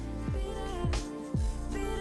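Background music with a wavering melody over deep bass notes that slide down in pitch about every half second.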